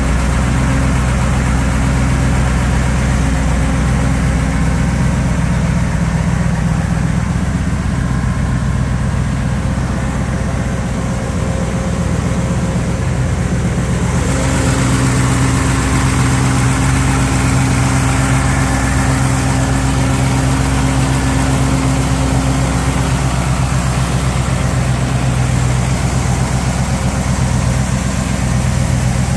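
A classic car's engine idling steadily, with more hiss coming in about halfway through.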